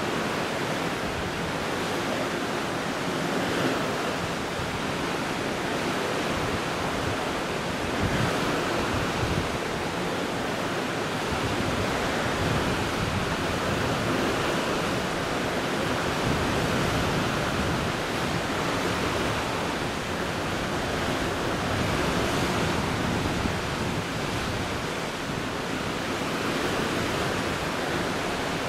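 Steady rushing of sea water with some wind, swelling gently every few seconds.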